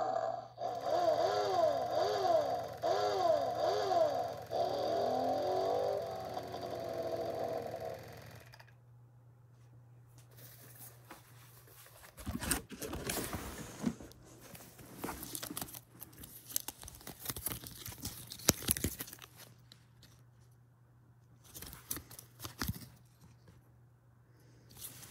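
Department 56 Movers & Shakers animated vampire-on-motorcycle figure playing its spooky sound through its small speaker: a wailing tone sliding up and down over and over, a little faster than once a second, stopping about eight seconds in. Then quieter handling noise as the plush figure is picked up, with scattered rustles and crinkles of its card tag.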